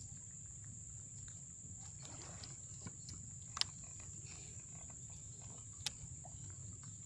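Quiet outdoor background: a low steady rumble and a steady high-pitched whine, broken by two short sharp clicks about three and a half and six seconds in.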